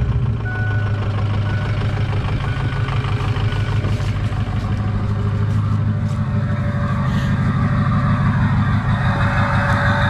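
Ford 6.0 Powerstroke V8 turbo diesel running steadily, with its low pulsing diesel note, now that a loose plug on the FICM has been reconnected and it is meant to run normally. A brighter hiss builds over the last couple of seconds.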